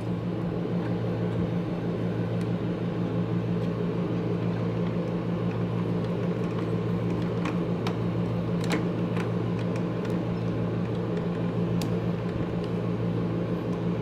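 Steady low machine hum with a few light clicks from a small screwdriver working a terminal screw.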